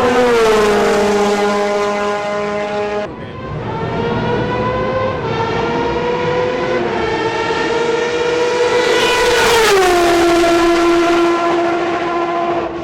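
Group C prototype race cars passing at speed: one engine's pitch drops sharply as it goes by at the start. A second car is heard accelerating with gear changes and passes with a falling pitch about ten seconds in.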